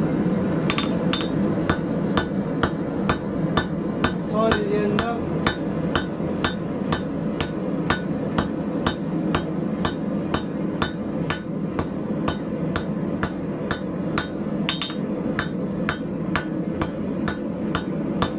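Hand hammer striking hot 8 mm rebar on a steel anvil in a steady rhythm of about three blows a second, each with a short high ring, as the end of the bar is drawn into a taper. Underneath runs the steady rush of the gas forge.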